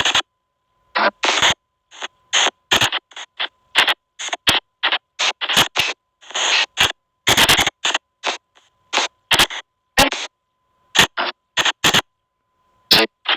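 A spirit-box app on a phone sweeping: a rapid, irregular string of short chopped bursts of noise and audio fragments, each a fraction of a second long with brief silences between them. A faint steady high tone runs through some of the gaps.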